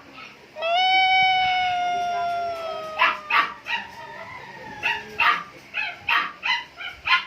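A dog gives one long howl, falling slightly in pitch over about two seconds, then barks and yips in a string of short sharp barks.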